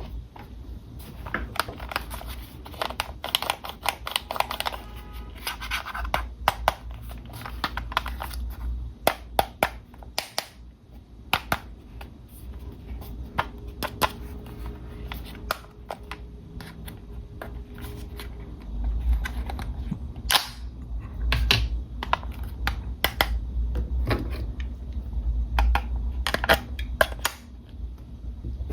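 Irregular sharp clicks, taps and scratches of hard plastic being handled while an RC toy car is unboxed, with a low rumble of handling noise from about the middle on.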